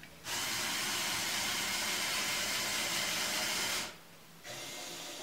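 LEGO Technic L-Motor and its gear train whirring as a remote-controlled gantry crane drives along a table. It runs steadily for about three and a half seconds, stops, then runs again more quietly near the end.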